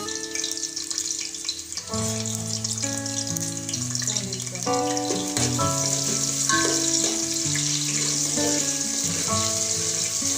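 Sliced onions sizzling as they fry in hot oil in a pan, the sizzle getting louder about halfway through, under background music of held keyboard-like notes.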